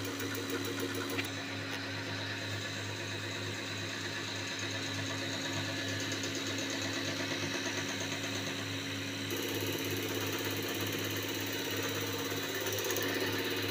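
Common-rail diesel injector test bench running with a Siemens/Continental injector from a Skoda Rapid firing on it: a fast, even ticking over the steady hum of the bench's pump drive. About nine seconds in, the sound shifts slightly.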